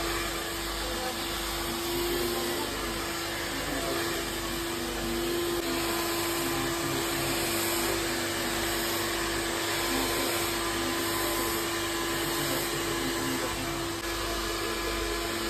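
Handheld hair dryer blowing hair, running steadily throughout: an even rush of air over a constant motor hum.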